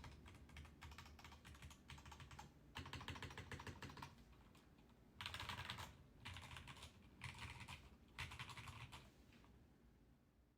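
Fast typing on a mechanical keyboard with Zealios V2 67g tactile switches and GMK Café keycaps. It comes as dense runs of keystroke clacks in several bursts with short pauses between them, and fades out near the end.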